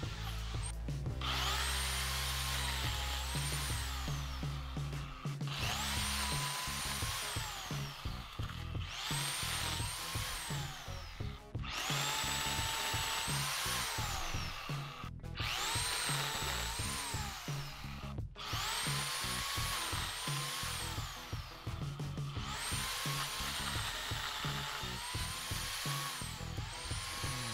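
Corded electric pole chainsaw cutting tree limbs in repeated short bursts, about eight times. Each time its motor whine rises as it spins up, dips partway through, then falls away. Background music with a steady beat runs underneath.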